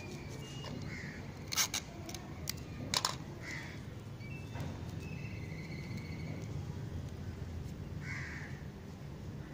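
A bird calling several times, with short calls, the two loudest about a second and a half and three seconds in, over a steady low hum.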